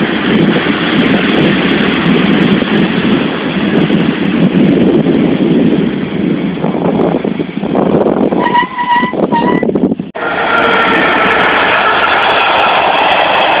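Passenger train coaches rolling past close by, a steady loud rumble and rush of wheels and air. About eight seconds in, a high tone sounds in several short broken pieces. After an abrupt cut about ten seconds in, a freight train of container and trailer wagons rolls past with a steady noise.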